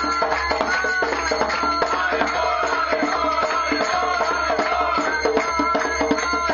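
Devotional kirtan: a group of voices singing a chant over a hand drum keeping a quick, steady beat.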